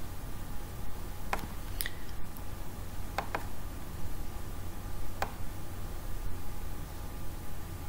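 About five sharp computer mouse clicks spread out, two in quick succession about three seconds in, over a steady low hum.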